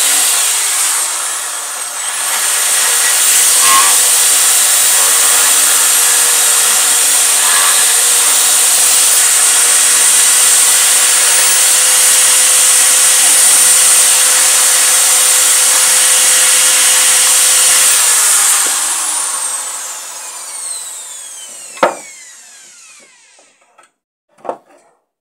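Corded electric drill running at speed, boring through a wooden board, with a steady high whine; it dips briefly about two seconds in, then winds down with a falling whine after the trigger is released. Two sharp knocks follow near the end.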